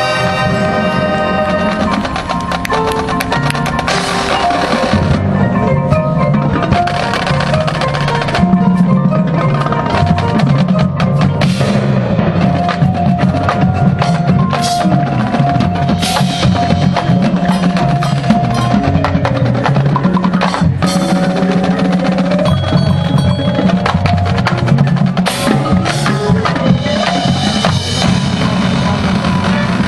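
Marching band in a percussion-led passage: many sharp drum strikes and mallet percussion such as chimes and glockenspiel over held low notes.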